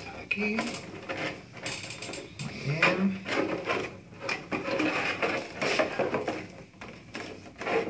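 Clear plastic blister packaging being handled, crinkling and clicking with a run of irregular light knocks as it is moved about and set down on a desk.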